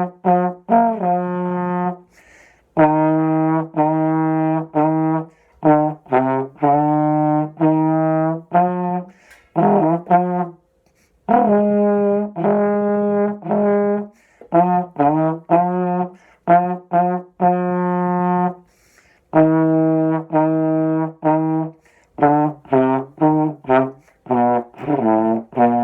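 Solo trombone playing a simple band melody: held notes and runs of short tongued notes in phrases, with brief breath pauses between them.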